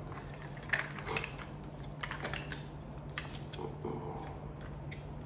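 Scattered light plastic clicks and rattles from the casing of an FKM handheld infrared thermometer as its 9-volt battery is snapped in and the battery compartment closed.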